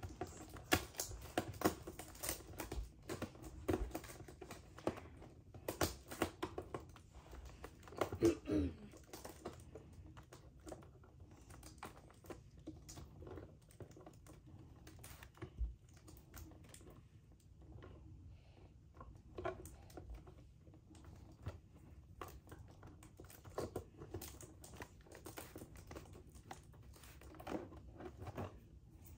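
Packaging of a boxed collectible doll being handled and unpacked: irregular clicks, taps and crinkles, busiest in the first ten seconds and sparser after.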